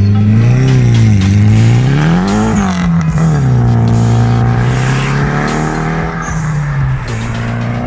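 Mitsubishi GTO with its stock twin-turbo engine and Nissan Silvia S15 with its SR20 engine launching from a standing start in a drag race. The engine pitch climbs and drops twice at the gear changes in the first three seconds, then settles into a steady drone as the cars pull away.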